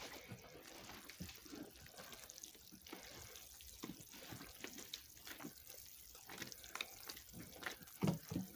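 Hands squishing through wet, sticky bread dough in a tub as flour is worked into the liquid: faint, irregular wet squelches, with a couple of louder ones near the end.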